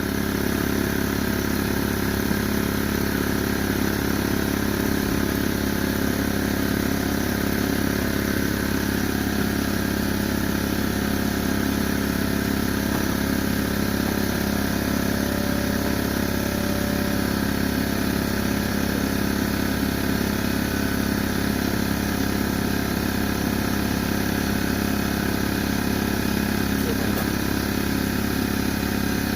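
A motor-driven machine running steadily with a constant low hum. It comes up in level right at the start and then holds even.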